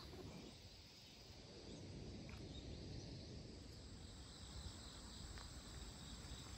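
Near silence: faint outdoor ambience at a riverside camp, with a couple of faint short chirps.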